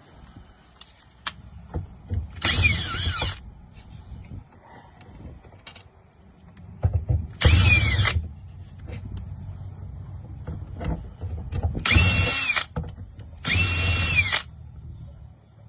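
Power drill run in four short bursts, a high motor whine each time, with small clicks and knocks of handling between, as an RV door lock is being taken out.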